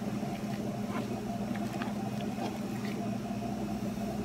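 A steady low hum, with a few faint soft ticks and squishes from gloved hands mixing flour into a wet dough mixture in a glass bowl.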